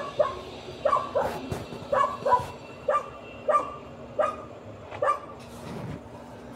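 A dog yipping in a run of short, high-pitched barks, about ten in quick, uneven succession, stopping about five seconds in.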